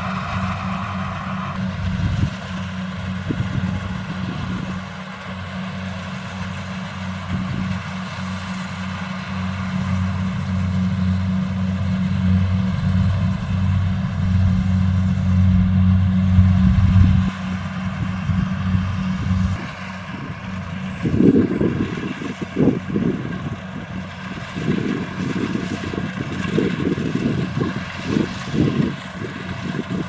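Kubota DC-70 Plus combine harvester's diesel engine running steadily as it cuts rice, a constant hum. From about two-thirds of the way in, irregular gusty rumbles from wind on the microphone sit over the machine's sound.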